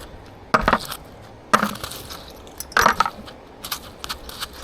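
Three short crunching scrapes about a second apart: small scrap metal such as nails and coins being pulled and scraped off a strong magnet.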